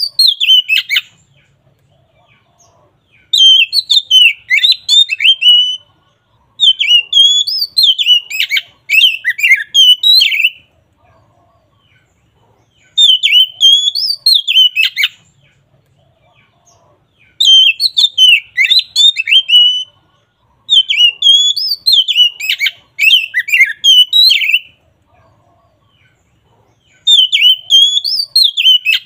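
Oriental magpie-robin singing loud, full song: repeated phrases of rapid, varied whistled notes a few seconds long, with pauses of a second or two between them.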